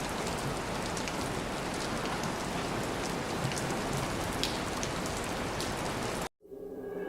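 Steady rain falling on a surface: an even hiss with scattered ticks of single drops, cutting off abruptly about six seconds in. Music then begins fading in.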